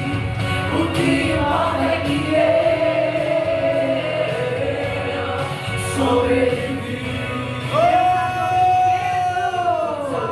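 Gospel song sung live over instrumental accompaniment in a large hall. Near the end a long held sung note bends downward.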